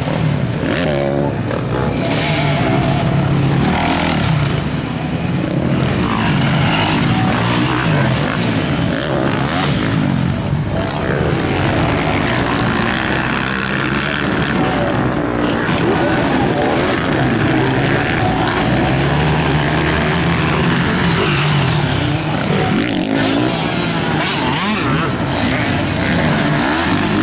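Several motocross bikes racing on a dirt track, their engines revving up and down, the pitch rising and falling continually as they accelerate and back off.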